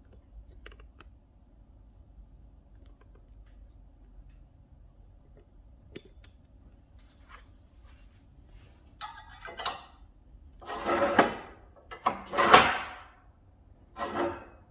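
A few faint clicks, then four short scraping, sliding noises in the second half, the loudest about two seconds before the end.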